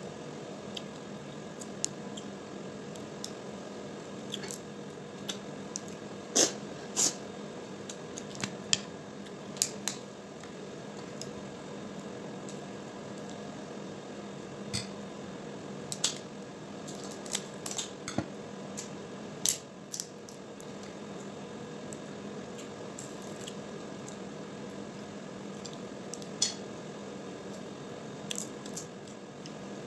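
Cooked crab shells being cracked and picked apart by hand while eating: irregular sharp cracks and clicks, thickest about six to ten seconds in and again around sixteen to twenty seconds, over a steady low hum.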